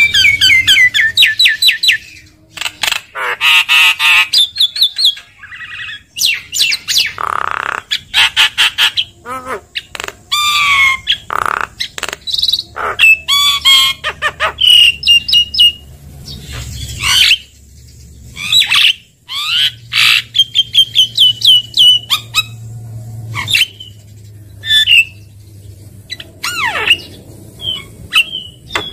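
Javan myna singing a varied, loud string of harsh squawks, clicks and whistles, with fast runs of short repeated chirps and some gliding notes.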